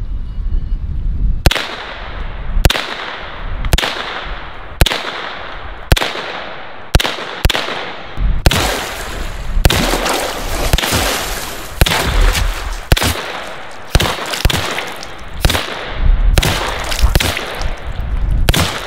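HK SP5 9mm rifle firing semi-automatic single shots, about one a second and sometimes two in quick succession.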